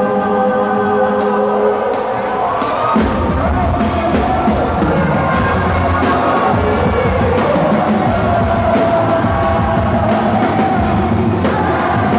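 Loud music with a sung melody over held tones; a drum beat and bass come in about three seconds in.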